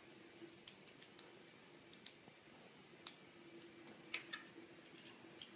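Light, irregular clicks of 3D-printed plastic snap tiles being handled and fitted together, with the sharpest pair of clicks about four seconds in, over a faint steady hum.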